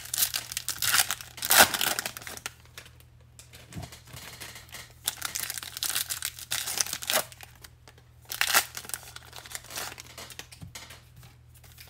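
Foil wrapper of a 2021 Bowman baseball card pack being torn open and crinkled by hand, in several bursts of crinkling with short pauses between.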